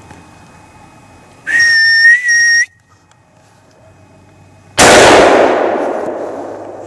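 A loud high whistle, held about a second with a brief break, to stop a deer. About two seconds later comes a single shot from a Savage Model 116 rifle in 6.5x284, the loudest sound, its echo fading over about two seconds.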